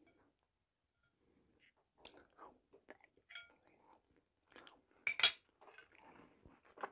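Chewing and mouth sounds of someone eating, picked up close by a lapel microphone, with a few light clicks of a metal fork against a china plate. The loudest is a sharp clink about five seconds in, as the fork is set down on the plate.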